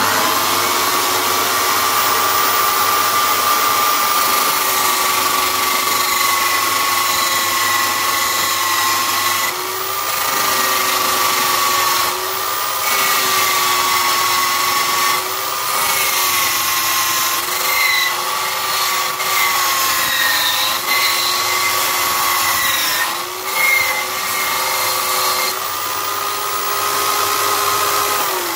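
Electric drill running a sanding disc at steady high speed, with a whine. Its pitch dips briefly again and again as a wooden stick is pressed against the disc and sanded to a point, loading the motor.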